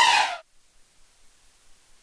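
Sampled orchestral high strings (Spitfire Albion ONE 'Strings High – Runs') playing a fast chromatic descending run. It cuts off about half a second in, then near silence.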